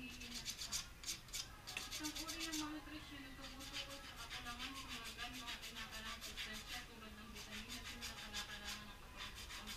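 Knife blade scraping along a carved jackfruit-wood squid and octopus lure, shaving and smoothing it in quick repeated strokes, about three or four a second.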